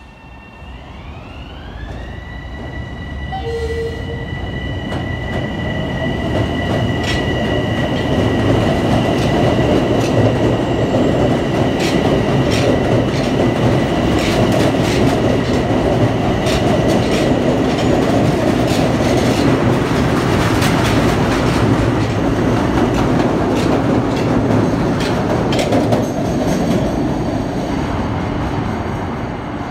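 Long Island Rail Road electric passenger train approaching and running past on elevated track, its rumble growing loud over the first several seconds. A high whine rises in pitch at first, then holds steady over the rumble, with the wheels clicking irregularly over the rails. The sound eases slightly near the end.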